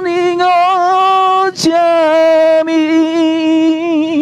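A solo voice singing a slow song in long, wavering held notes, with a short breath about one and a half seconds in.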